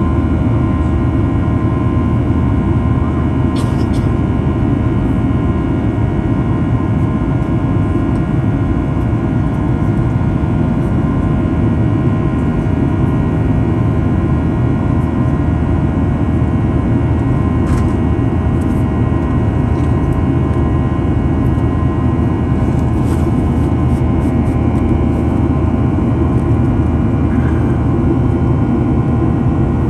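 Cabin noise of a Boeing 737-800 in the climb: a steady roar from its CFM56-7B turbofan engines and the rushing air, with several steady whining tones from the engine fans over it. A few faint ticks come through here and there.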